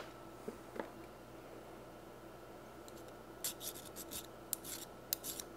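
Faint scratching and rubbing of hands on a machined steel part being checked for a burr: two small clicks near the start, then a quick run of short scrapes through the second half, over a faint steady hum.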